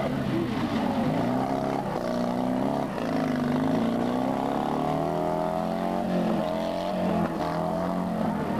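Fiat 126p rally car's air-cooled two-cylinder engine revving hard under full throttle, its pitch climbing and dropping repeatedly as the car is driven through a loose-surface corner and away.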